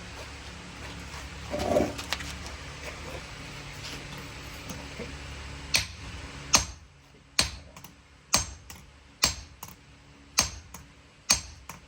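Hammer blows on a knife blade being forged on an anvil, roughly one strike a second, starting about halfway through. Under the first half is a steady hum.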